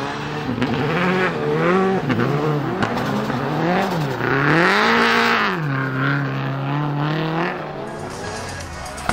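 Rally-prepared Subaru Impreza WRX STI's EJ20 Spec C flat-four with equal-length headers and a twin-scroll turbo, revving up and down several times as the car slides past. There is a brief hiss at the highest revs about halfway, then the revs hold steady before fading near the end.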